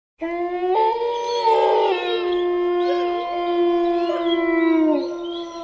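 Canine howling: long, drawn-out held notes from several overlapping voices, starting abruptly and sliding down in pitch near the end.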